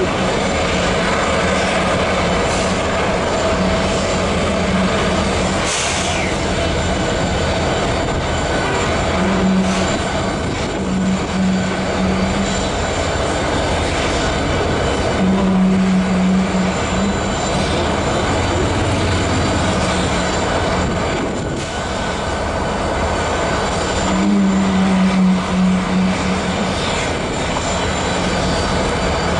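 Union Pacific 4014 Big Boy steam locomotive standing under steam: a steady rush of venting steam with a low rumble, and a low hum that swells and fades several times.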